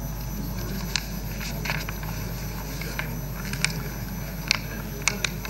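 Steady low hum of a microphone feed with no speech, broken by scattered light clicks and taps, about half a dozen of them.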